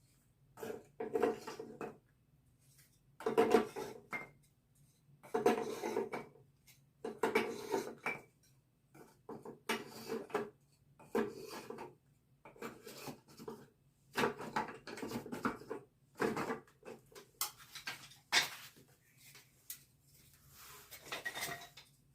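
Wooden beehive frame pieces clattering and knocking as they are handled and fitted together, in short irregular bursts every second or two.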